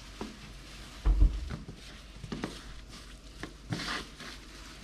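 A hand tossing and patting pieces of fish in a plastic bowl of dry seasoned crumb coating: soft rubbing and patting with scattered light taps, and a dull thump about a second in.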